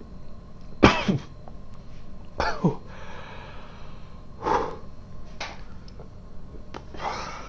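A man's non-speech vocal sounds: one sharp, loud sneeze-or-cough burst about a second in, then a short falling exclamation and a few breathy huffs.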